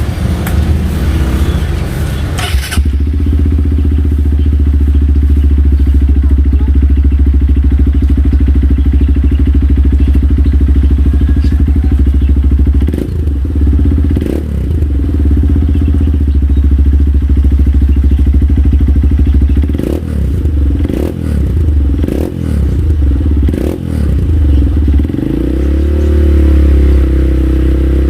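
Honda CRF150L's single-cylinder four-stroke engine idling through an Akrapovic carbon full-system exhaust, with a deep bass note. The throttle is blipped several times around the middle, the revs rising and falling quickly. Near the end the revs climb and are held higher.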